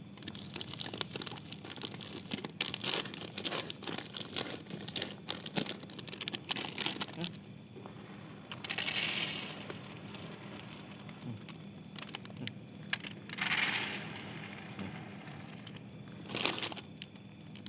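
Plastic food packaging crinkling and rustling in irregular spells, with many scattered sharp clicks and two brief hissing swells, one about halfway through and one a few seconds later.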